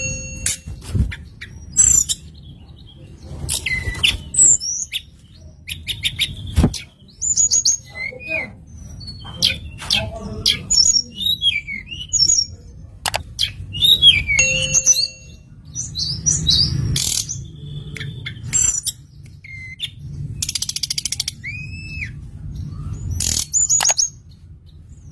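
Tledekan song played as a lure recording: a busy run of short chirps, trills and whistles with occasional sharp clicks, over a steady low rumble.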